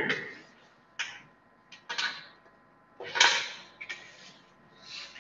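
A man's breaths and sniffs close to the microphone: several short noisy puffs about a second apart, the loudest just as it begins.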